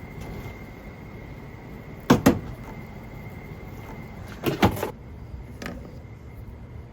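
Sharp plastic clicks and knocks from the rear bumper cover of a Fisker Ocean being pried and pulled free of its clips: two quick clicks about two seconds in, a cluster of knocks about two seconds later, then a fainter one.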